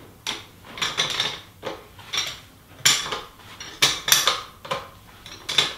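Pliers clicking and clinking on a water pump's priming plug as it is tightened back in, about a dozen sharp metallic clicks at an uneven pace.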